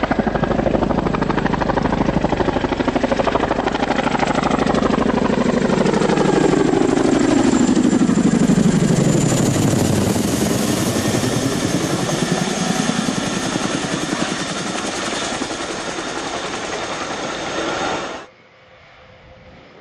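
Boeing CH-47 Chinook tandem-rotor helicopter flying low overhead: rapid rotor-blade chop with a high turbine whine. It grows to its loudest as it passes overhead about ten seconds in, then drops in pitch and eases off as it moves away. Near the end the sound cuts abruptly to a much quieter, steady aircraft engine hum.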